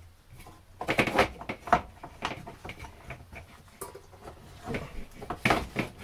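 Knocks, clicks and rustling from hands working inside an open wooden cabinet bay, handling and routing wiring. There is a cluster of louder knocks about a second in and another near the end.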